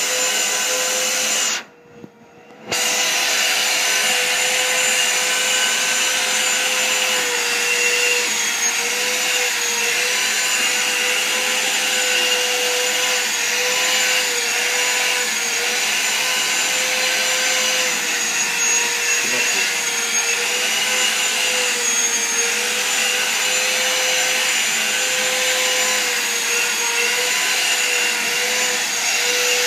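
Vacuum cleaner running steadily, used on a cat to suck up its loose fur: a loud rush of air over a motor whine whose pitch dips and rises slightly. The sound cuts out abruptly for about a second near the start.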